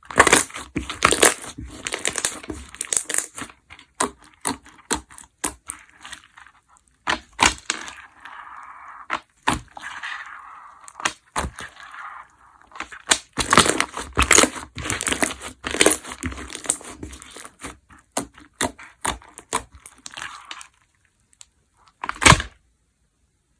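Slime with small decorative pieces mixed in, being squeezed and pressed by hand, giving dense crackling and clicking pops. It goes softer for a few seconds in the middle, stops near the end, then gives one last short burst of crackles.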